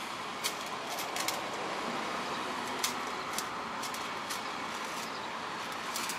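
Steady background hiss of workshop noise with a few light clicks and taps of small carburetor parts being handled.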